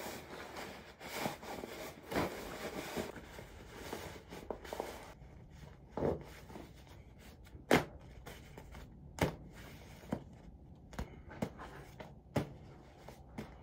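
Rustling and crinkling as a bag is handled for the first five seconds or so, then a string of sharp clicks and taps, the loudest about halfway through.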